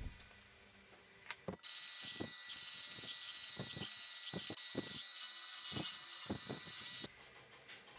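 Drill press boring holes in plywood: a steady high whine with cutting hiss starts about a second and a half in and cuts off suddenly about seven seconds in, with several sharp knocks along the way.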